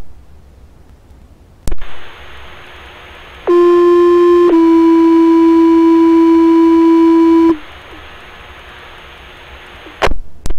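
Fire department two-tone sequential page heard through a scanner radio: one steady tone for about a second, then a slightly lower tone held for about three seconds, over radio hiss. Short clicks of the radio channel keying come before and after the tones. It is the page-out alerting the fire station to turn out.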